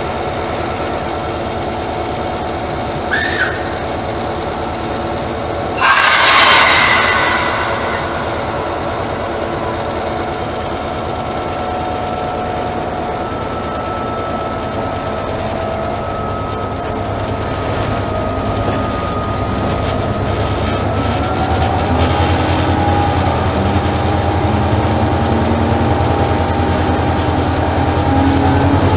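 Diesel locomotive engine running, heard from the locomotive's roof, with a loud hiss about six seconds in that fades over a couple of seconds. About 22 seconds in the engine revs up and grows louder as the train pulls away from the station.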